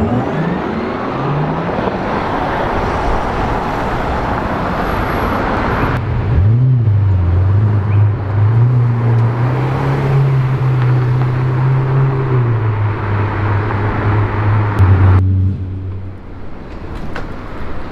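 Street traffic noise with a car going by, then, after an abrupt cut, a Ferrari 488's V8 engine blipped once and running at low revs with a steady deep rumble that shifts slightly in pitch. The rumble cuts off abruptly a couple of seconds before the end, leaving quieter street sound.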